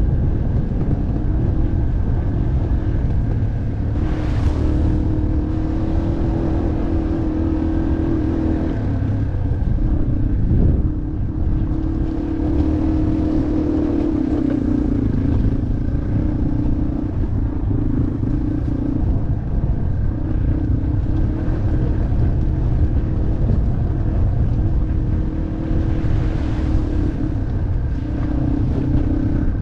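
Yamaha off-road motorcycle engine running while being ridden, its pitch rising and falling with the throttle over a heavy low rumble.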